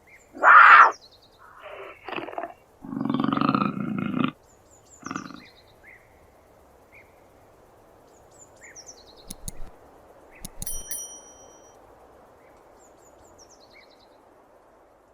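Puma (cougar) calling: a few loud calls in the first five seconds, one of them lower and longer. Then faint high chirps of a small bird over a soft hiss, with a couple of clicks near the middle.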